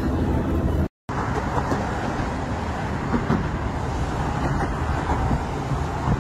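Steady road traffic noise, cars running past on a busy road, broken by a brief cut to silence about a second in.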